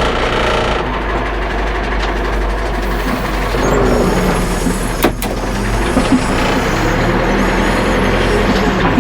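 Big tractor's engine running steadily while working dirt with its backhoe loader, with a couple of sharp knocks about five and six seconds in.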